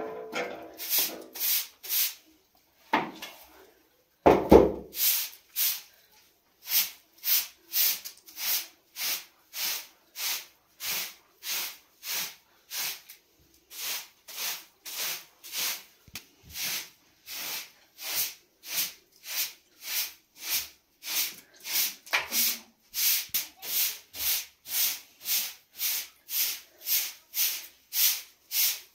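Rhythmic hand-worked rubbing strokes, about two a second, each a short rising and falling swish, with one dull thump about four seconds in.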